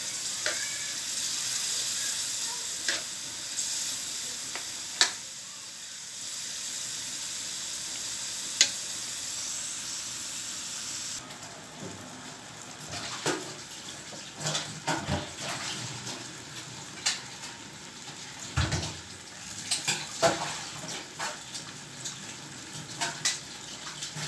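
Meat in sauce sizzling in an aluminium wok while a metal spatula stirs it, with a few sharp clacks of the spatula against the pan. About eleven seconds in the sizzle cuts off abruptly, leaving a quieter background of scattered kitchen knocks and clatter.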